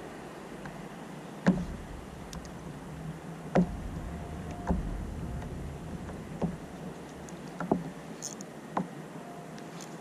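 Sharp knocks on a plastic fishing kayak, six in all, a second or two apart, over a steady low wash of sea and wind.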